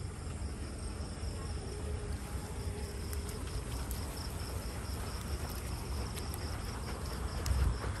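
Crickets chirping steadily, a fast pulsing high trill throughout, over a low rumble with a louder bump near the end.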